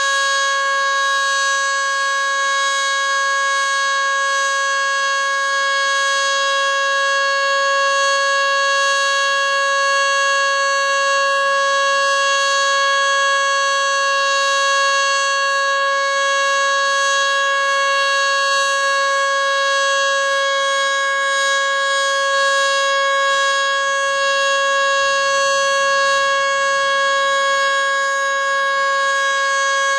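Federal Signal Model 2 outdoor warning siren sounding during a test, holding one steady, loud tone with many overtones at full pitch, without rising or falling.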